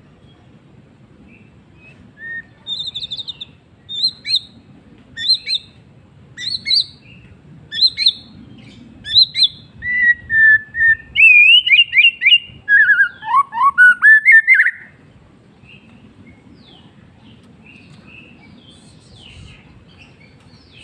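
White-rumped shama singing. A run of short high notes repeats about once a second, then builds into a louder phrase of varied whistled glides rising and falling. The song stops about fifteen seconds in, leaving only faint chirps.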